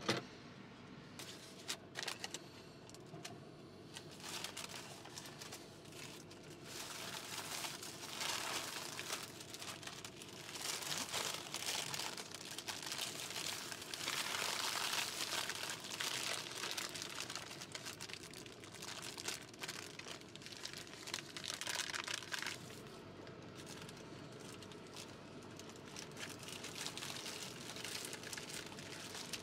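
Paper burger wrappers crinkling and rustling as takeout hamburgers are unwrapped and handled, in irregular bursts that are loudest through the middle of the stretch.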